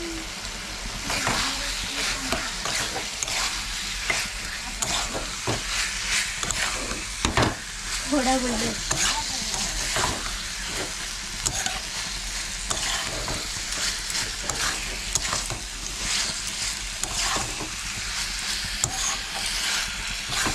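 Chicken pieces and diced potato frying and sizzling in a kadai on a gas stove, stirred with a metal spatula: steady sizzle with frequent scrapes and clinks of the spatula against the pan.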